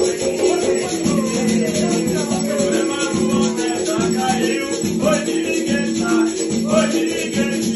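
Umbanda ritual music for Oxóssi: voices singing a ponto over a steady shaken rattle, continuous, without pauses.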